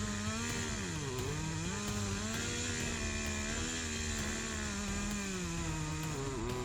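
Chainsaw running at high revs. Its pitch sags briefly about a second in and again near the end, as if bogging under load in a cut.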